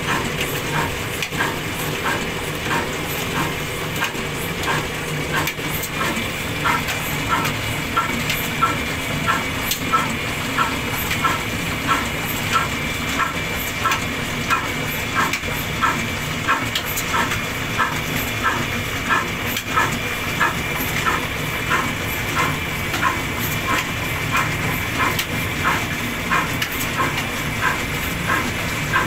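Ruston Hornsby stationary diesel engine running steadily at slow speed, a regular beat of about three firing pulses a second over a constant mechanical hum and hiss.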